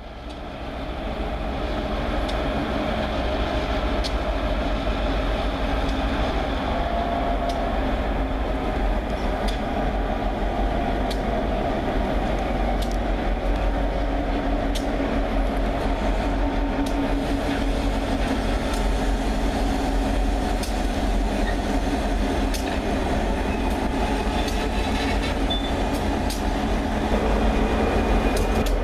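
Norfolk Southern diesel freight locomotives (ex-Conrail units) passing close by with their train, a steady low engine rumble and hum with scattered metallic clicks from the cars and wheels. The sound fades in at the start.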